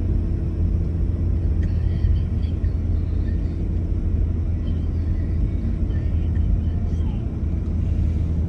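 Steady low rumble of a car driving along a highway, heard from inside the cabin: engine and tyre noise on the road surface.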